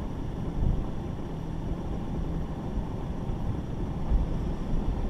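Mitsubishi Pajero engine running at low speed, a rough low rumble heard close up through the hood, with wind buffeting the microphone. The rumble grows louder about four seconds in.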